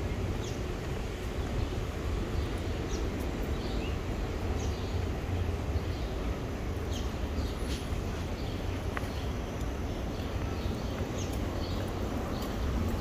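City street ambience: a steady low rumble of traffic, with small birds chirping repeatedly in short, high, falling notes.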